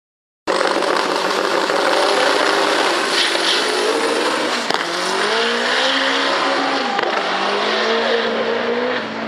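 Drag-racing Chevrolet Chevette's engine running loud at the start line. From about five seconds in it accelerates hard down the strip, its pitch climbing and dropping back at an upshift, then climbing again.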